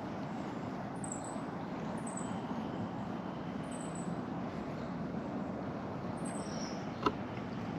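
Small birds' high, thin calls, one every second or two, over a steady rushing background, with a single sharp click about seven seconds in.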